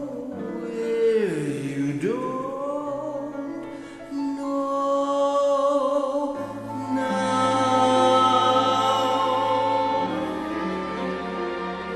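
Slow music with a singing voice holding long notes, with one swooping dip and rise in pitch about a second and a half in.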